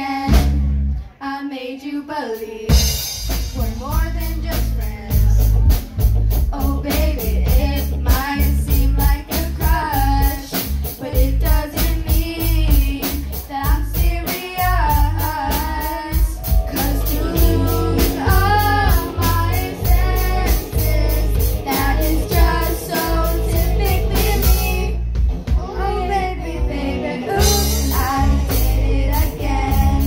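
Live band with young girls singing lead over a drum kit and electric guitar. It is thin for the first couple of seconds, then the full band with drums comes in about three seconds in.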